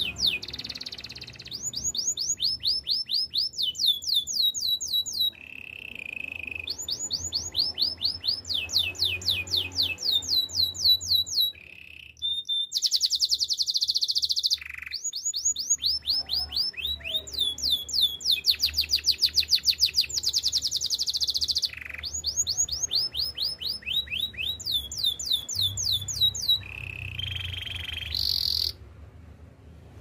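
Domestic canary singing a long, continuous song in phrases: runs of quick falling whistled notes repeated several times a second, broken by fast buzzy trills and a few short held notes, with brief pauses between phrases.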